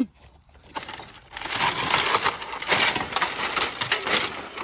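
A broken flat-screen TV being wrenched out of a pile of bricks and cinder blocks, its plastic and glass debris crunching and rattling against the brick. A quiet start with a few clicks, then a dense run of crackles and clinks from about a second in.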